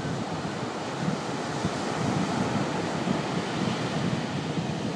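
Small knee-high waves breaking and washing up on a sandy beach, a steady surf wash, with wind buffeting the phone's microphone in irregular low gusts.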